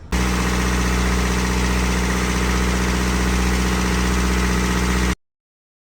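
Boat's inboard engine running steadily with a deep, even drone on its test run after a mechanic's repair of the motor and gearbox; it cuts off suddenly about five seconds in.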